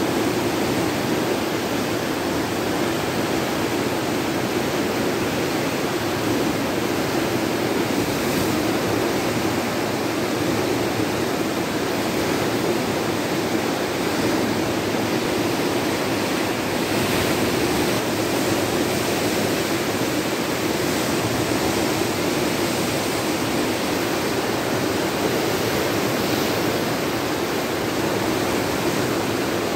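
A muddy river in full flood rushing through rapids: a steady, unbroken rush of turbulent water.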